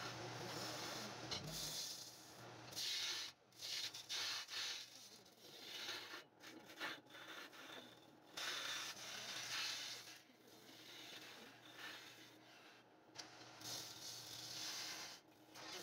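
Sandpaper rubbing against a wooden baluster spinning on a wood lathe: a hissing scratch that swells and fades in uneven strokes as the hand moves along the piece, over a steady low hum.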